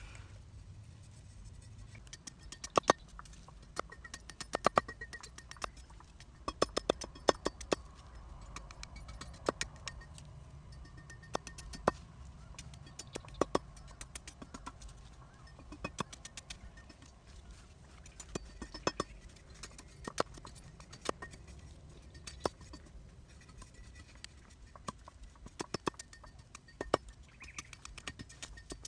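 A long run of irregular sharp clicks and knocks, several a second at times, over a faint low rumble.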